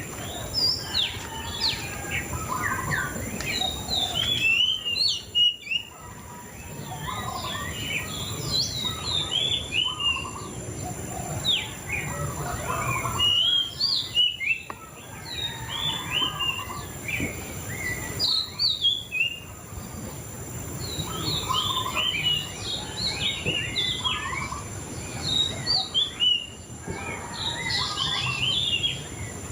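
A murai cacing songbird singing a busy, continuous run of short, sharp chirps and whistled notes, broken by brief pauses.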